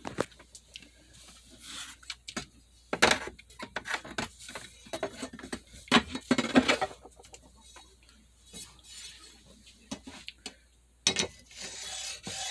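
Scattered knocks and clinks of stone artifacts being handled and set down on a tabletop. About eleven seconds in, a scraping rub starts as a rod is run along the groove of a stone arrow-shaft straightener.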